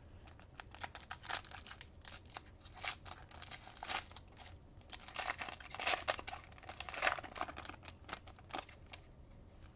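Foil wrapper of a Panini Chronicles basketball card pack being torn open and crinkled by hand: irregular crackling and tearing, with louder bursts every second or so.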